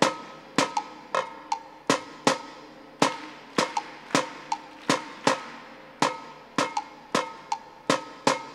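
Drums struck by a drumming robot, playing a rhythmic pattern at a slow tempo of about 80 beats a minute. Each hit is sharp, with a brief ringing tone after it.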